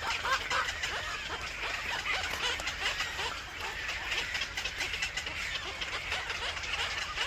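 Birds chirping in a dense, continuous chatter of short, quick calls, over a steady low hum.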